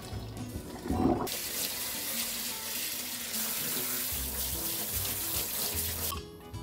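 Spray from a pull-out kitchen faucet running onto boiled broccoli in a stainless mesh colander in the sink, a steady hiss that starts just after a brief knock about a second in and cuts off shortly before the end.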